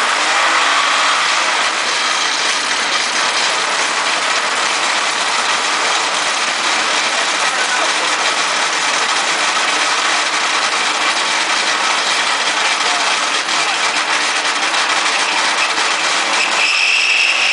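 Homemade friction welder running: a motor-spun metal rod grinding against a clamped rod under pressure, a steady loud rubbing noise as the joint heats to a red glow for the weld. A high squeal joins in near the end.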